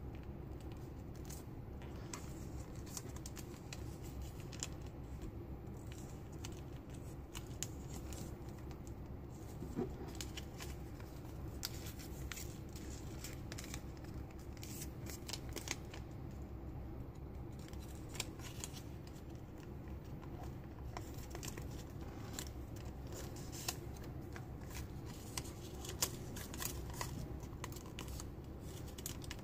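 Origami paper rustling and crinkling as it is folded and creased by hand, with many small sharp crackles throughout over a steady low background noise.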